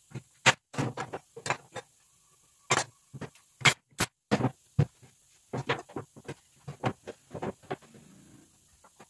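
Irregular sharp knocks and clacks of wooden pieces being handled and tapped together during assembly, about a dozen and a half short strikes at uneven spacing.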